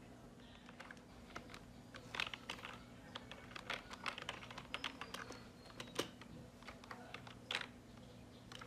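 Keys being typed on a computer keyboard: an irregular run of light clicks, with a few louder keystrokes, over a faint steady low hum.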